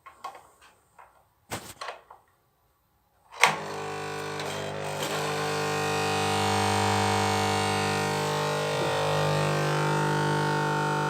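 A few light clicks and knocks, then a sharp click about three and a half seconds in, after which a fluorescent tube's magnetic ballast (choke) buzzes loudly: a steady hum of many tones that swells over a few seconds and then holds. The noise comes from a tube with one electrode cut off that keeps running at the end of its life, sending large discharges to its electrodes.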